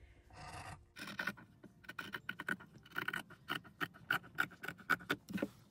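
Scissors snipping through cotton fabric along a traced line: a brief rustle of the cloth, then from about a second in a run of quick, irregular snips.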